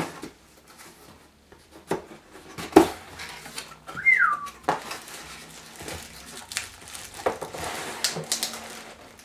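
Cardboard speaker box being unpacked by hand: flaps opened and an inner cardboard tray pulled out, with scattered knocks and scrapes, the loudest about three seconds in. A short falling squeak about four seconds in.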